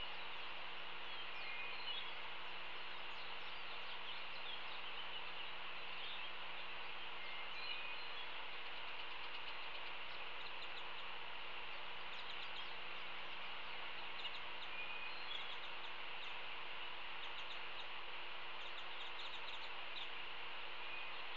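Steady outdoor background hiss with short, scattered bird chirps throughout, over a faint steady low hum.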